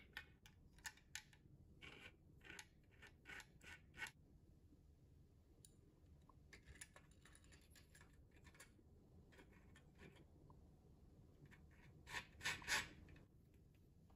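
Small plastic gears and kit parts clicking and scraping as they are pushed onto shafts on a plastic projector chassis: a quick run of light clicks, a scratchy stretch, then a louder cluster of clicks near the end.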